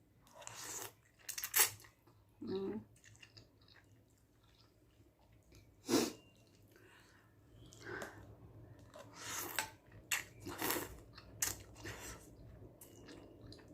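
A person eating Korean instant ramen noodles: mouth sounds of chewing, with scattered short noisy bursts and clicks, and a brief hum-like sound a few times.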